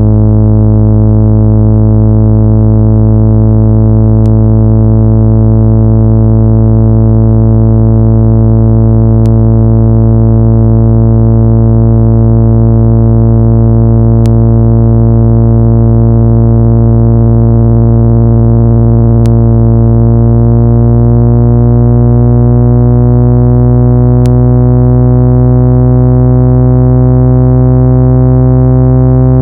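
Electronic speaker-cleaning tone: a loud, steady, low-pitched hum with many overtones, played to shake dust and particles out of a speaker grille. Its upper overtones drift slowly upward, and there is a faint click about every five seconds.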